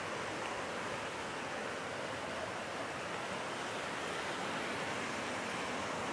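Creek in flood, running high and fast: a steady rush of muddy whitewater.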